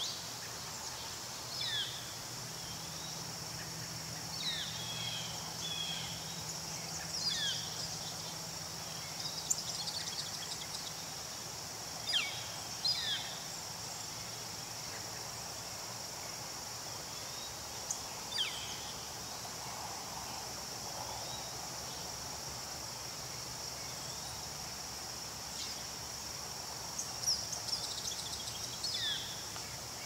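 Lakeside summer ambience: a steady high-pitched drone of insects, with short downward-sliding bird calls breaking in now and then.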